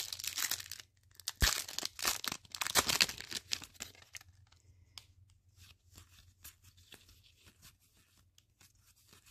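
Foil Pokémon booster pack wrapper being torn open, crinkling and crackling loudly over the first three or four seconds. Then quieter rustling and light ticks as the cards are pulled out and handled.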